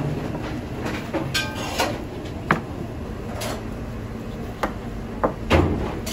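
A knife cutting and trimming raw meat on a plastic cutting board, with irregular knocks and scrapes over a steady background hum. The loudest knock comes about five and a half seconds in.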